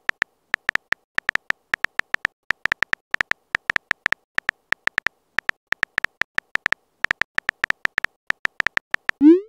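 Phone keyboard typing sound effect: short, high, beep-like key clicks at an uneven pace of about five a second as a text message is typed. Near the end comes a short rising blip, louder than the clicks, as the message sends.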